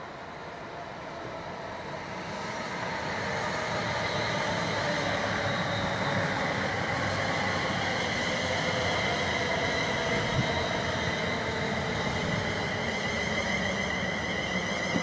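London Midland Class 350 Desiro electric multiple unit running past: rumble of wheels on the rails with steady whining tones. It swells over the first few seconds and then stays loud.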